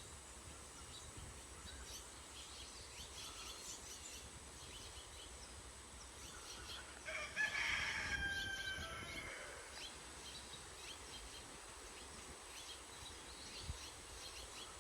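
A single drawn-out bird call, with a rooster's crowing quality, lasting about two seconds, some seven seconds in. It sounds over a steady low rush of wind and faint scattered chirps.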